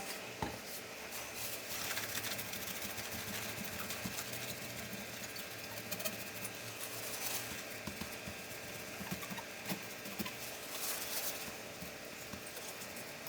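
Fast, light clicking and rattling of small tools and plastic laptop parts being handled during disassembly, played back sped up, over a steady low hum.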